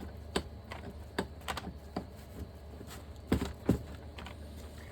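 Irregular light clicks and taps of metal parts and tools being handled on a workbench during a brake caliper piston fitting, with two louder knocks a little past the middle.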